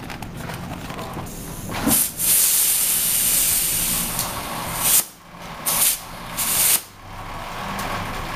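Compressed air hissing into a bicycle inner tube as the tyre is inflated. There is one long burst of about three seconds starting about two seconds in, then two short bursts.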